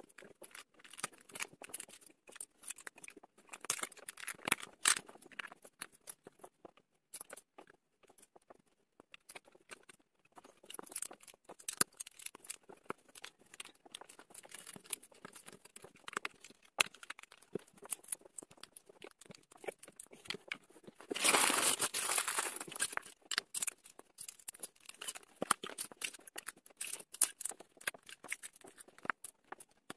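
LEGO pieces clicking and rattling as small plastic bricks are picked from a loose pile and pressed together by hand. About 21 seconds in comes a louder burst of rustling and rattling lasting about two seconds.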